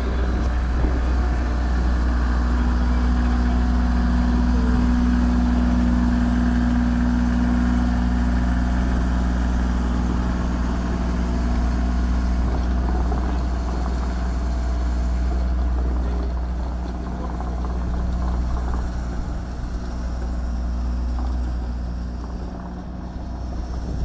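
Kioti CK35 compact tractor's three-cylinder diesel engine running steadily while a rear-mounted Kersten rotary sweeper brush works over the dirt yard. The sound grows fainter over the last few seconds as the tractor pulls away.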